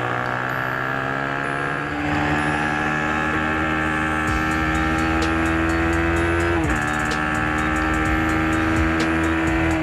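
Small-displacement race motorcycle engine held at high revs under power, its pitch climbing slowly, with a quick gear change about two-thirds of the way through.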